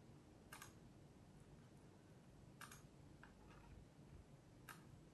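Faint computer mouse clicks, three sharper ones about two seconds apart and a couple of softer ones between, over quiet room tone.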